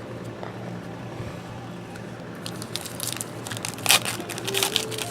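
Foil trading-card pack wrapper being torn open and crinkled by hand, starting about halfway through as a run of irregular crackles.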